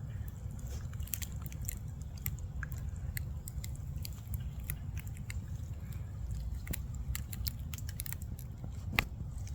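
Irregular crunching and crackling of footsteps on dry leaf litter along a woodland trail, over a steady low rumble.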